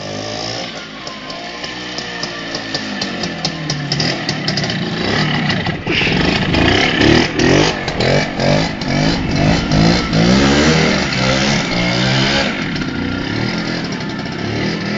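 Minsk motorcycle's freshly overhauled two-stroke single-cylinder engine revving: the engine note climbs over the first few seconds, then rises and falls again and again.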